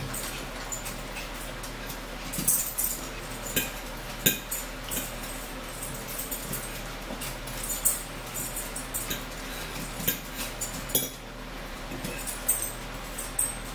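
Eating at a table: forks clinking and scraping on plates, with chewing and lip-smacking, in irregular sharp clicks several times a second over a low steady room hum.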